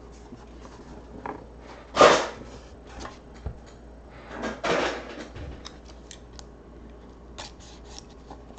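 Hands handling a trading-card box: the card box lifted out of its tin case and its sealed cardboard box worked open. This gives two short scraping swishes, one about two seconds in and one about four and a half seconds in, with light taps and clicks between them.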